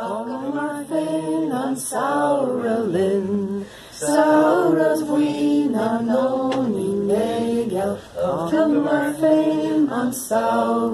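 A single voice singing a song unaccompanied, with long held notes and breaks for breath about four and eight seconds in.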